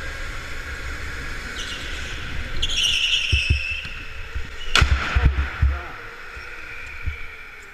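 Electric go-kart motor whining and fading as the kart slows, tyres squealing briefly, then a sharp crash of karts colliding about five seconds in, with a few heavy thuds around it.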